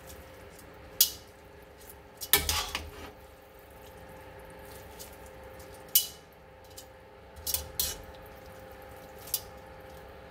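Metal tongs clinking against a ceramic bowl and the pan while soup, noodles and squash are served. The clinks come singly and a few seconds apart, with a short cluster about two seconds in, over a faint steady hum.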